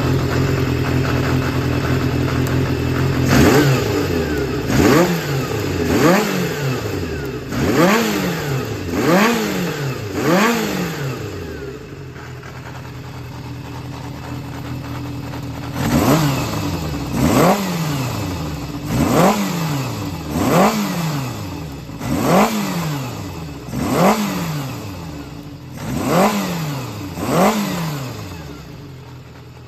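Yamaha XJR400 (4HM) air-cooled inline-four engine idling, then blipped on the throttle in two runs of quick revs that rise and fall sharply, with idle in between. The seller says it runs with no abnormal noise.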